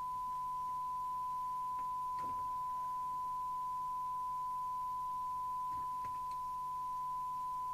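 A steady, unbroken 1 kHz test tone from the loudspeaker of a CB radio receiving a signal generator's tone-modulated test signal during alignment.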